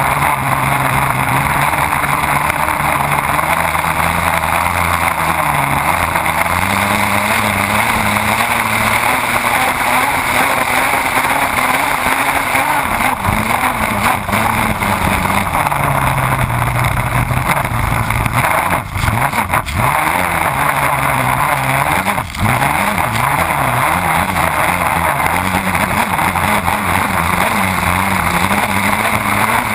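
Race boat engine running at speed under heavy rushing spray and wind noise, its note wavering up and down. The sound dips briefly a few times about two-thirds of the way through.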